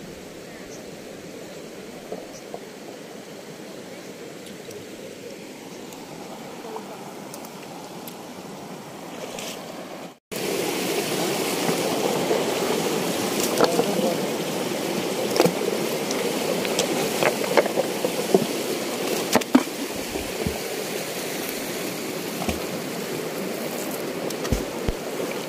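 Running water, like a stream, as a steady rushing. About ten seconds in it cuts off abruptly and comes back louder, with scattered sharp clicks and splashes.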